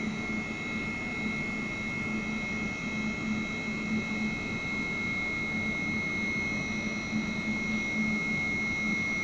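Inverter-fed Duyunov-design induction motor running on a test bench at about 2,950 rpm under a load of about 7 to 7.5 kW: a steady whir with a constant high whine and a low hum.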